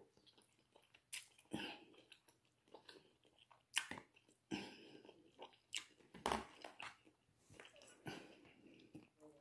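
A person chewing king crab meat with mouth smacking: short, irregular smacks and crunches, several a second, the strongest about four and six seconds in.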